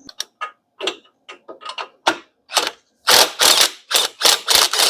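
Hand ratchet wrench clicking as it is worked on a bolt in short strokes: a few sparse strokes at first, then quicker, louder strokes about three a second from about three seconds in.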